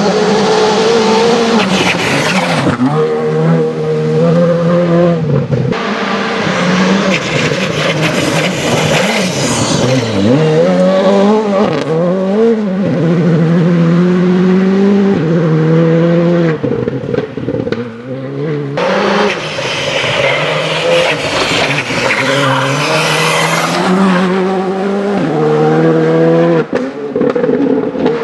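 Škoda Fabia Rally2 Evo rally car's turbocharged four-cylinder engine revving hard on a gravel stage, its pitch climbing and dropping again and again through gear changes and lifts. A hiss of tyres on loose gravel comes and goes over the engine.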